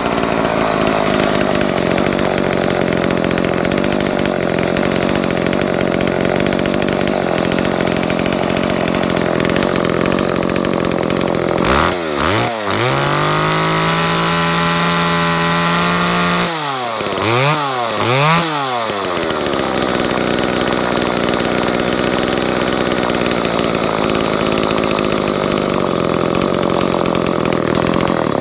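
Homelite XL two-stroke chainsaw idling steadily. About halfway through it is revved to full throttle and held for about four seconds, then blipped twice before it drops back to idle.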